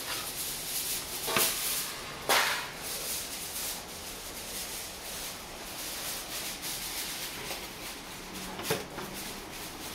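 A metal plate scooping cooked rice out of a large metal cooking pot, rubbing and scraping against the rice and the pot, with two sharp metal knocks about a second and a half and two seconds in and a lighter one near the end.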